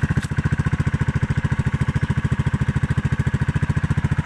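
Rusi RFI 175's engine idling steadily through an Akrapovic M1 slip-on muffler with its dB killer fitted: an even, rapid beat of exhaust pulses, deep and low.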